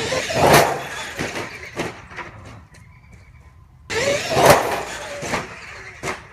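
Traxxas XMaxx electric RC monster truck driving in two sudden bursts of about two seconds each, near the start and again about four seconds in, with motor whine and tyre noise.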